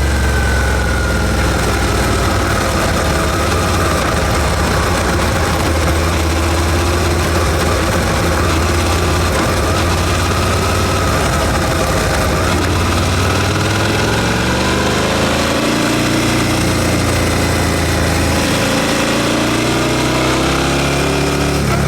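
Suzuki SV650's 645 cc V-twin engine on its stock exhaust, ridden at low speed. The engine note eases down near the start, holds fairly steady, then rises over the last several seconds as the revs pick up.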